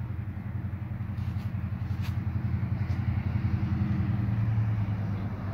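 An engine running steadily with a low, fast throb, a little louder about four seconds in.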